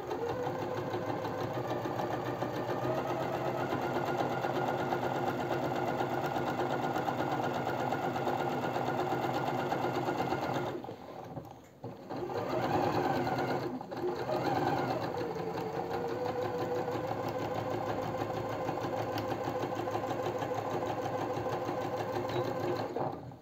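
Domestic electric sewing machine running a straight stitch through two layers of fabric, at a steady speed, with two brief stops near the middle where it slows down and speeds up again.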